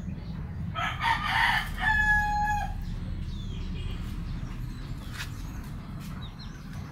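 A rooster crows once, about a second in. The crow starts rough and ends in a held note, about two seconds in all.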